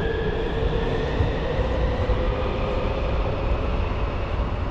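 Metro station elevator running: a steady low rumble with a faint hum that fades out about halfway through.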